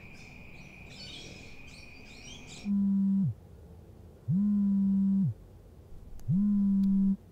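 Smartphone vibrating for an incoming call as it lies on a rug: three buzzes, each just under a second long, sliding up in pitch as the motor starts and down as it stops. Before them, insects chirp in a steady evening drone that cuts off about two and a half seconds in.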